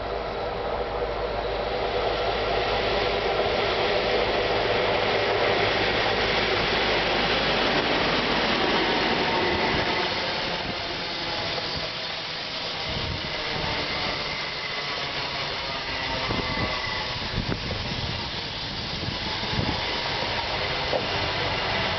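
An HST's Class 43 power car, with its MTU V16 diesel engine, comes past with a loud engine drone and whine. From about ten seconds in, the passenger coaches roll by, their wheels clicking over the rail joints, with a faint high squeal as the train slows for the platform.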